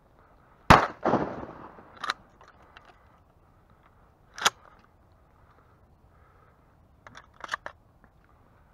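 A 12-gauge shotgun fired once, a loud blast just under a second in with a trailing echo. A few lighter, sharper clicks and knocks follow, at about two and four and a half seconds and near the end.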